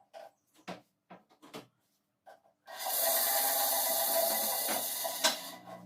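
A few light knocks and clicks of handling, then an 8-inch Ryu bandsaw starts abruptly about two and a half seconds in and runs steadily with its newly fitted blade. There is a brief dip in its sound near the end.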